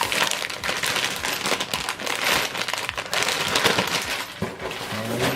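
Plastic packaging crinkling and rustling continuously as the exhaust kit's bagged hardware is handled.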